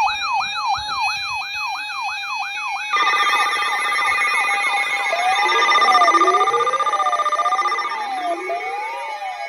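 Layered electronic siren sounds: a fast yelp sweeping up and down about three times a second over a steady tone. About three seconds in, slower wailing sweeps and more steady tones join it, loudest about six seconds in.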